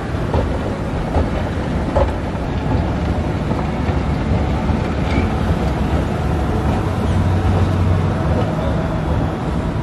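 Steady low mechanical rumble and hum of a moving escalator, with the general background noise of a large shop.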